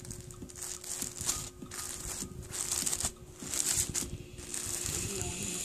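Clear plastic poly bag crinkling in irregular bursts as a hand presses and rubs it.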